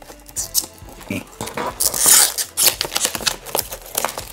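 Plastic shrink wrap crinkling and tearing as it is worked off a cardboard game box: a run of sharp crackles and clicks, with a louder rustling stretch about two seconds in.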